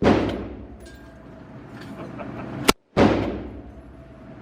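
5.56 rifle firing slow single shots: the echo of one shot dies away, then another sharp shot comes about two and a half seconds in, followed by its own fading echo.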